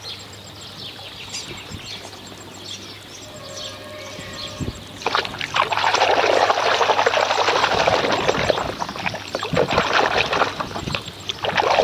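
Water splashing and sloshing in a plastic basin of soapy water as a toy is swished through it by hand. After a few quieter seconds the splashing starts about five seconds in and goes on as a dense run of quick splashes.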